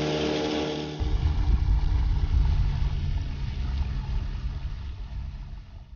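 Boat motor running steadily as the boat travels downriver, a low hum that turns into a louder low rumble about a second in and fades out near the end.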